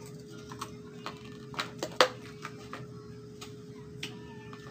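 Plastic takeout containers and a lidded plastic sauce cup being handled: a series of light clicks and taps, the sharpest about two seconds in, over a faint steady hum.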